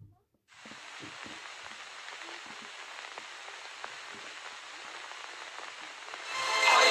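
Steady crackle and hiss in the style of an old film soundtrack, with faint scattered ticks, from the opening of a music video. Music with choral singing comes in about six seconds in.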